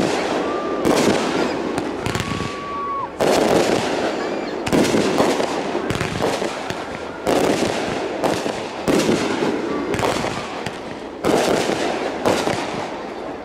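Consumer aerial fireworks bursting overhead: about nine loud bangs at uneven intervals of one to two seconds, with a continuous noisy wash between them.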